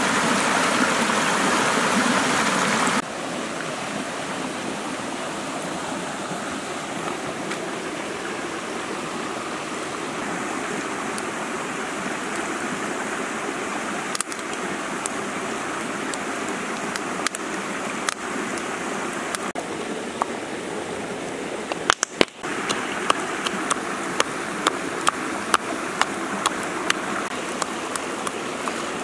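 A rocky stream rushing over stones, loudest for the first three seconds, then a quieter steady rush. From about 22 seconds in, a wood fire crackles over the water with sharp pops about twice a second.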